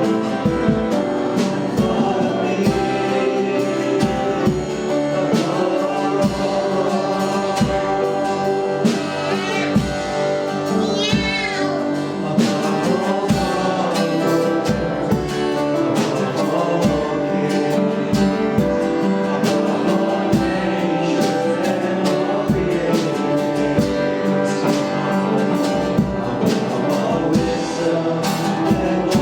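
Live worship song: singing voices over a band, with held chords and a steady beat.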